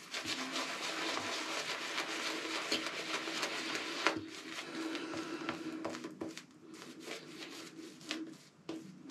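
Synthetic shaving brush (Boti Sky City N3C, 26mm knot) working soap into lather, a steady wet, crackly swishing that eases off briefly about six and again about eight seconds in.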